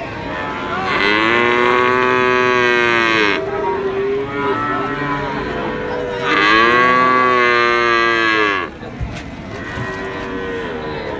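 A young calf bawling: two long, loud calls of about two and a half seconds each, rising and then falling in pitch, the first about a second in and the second about six seconds in, followed by fainter, shorter calls near the end.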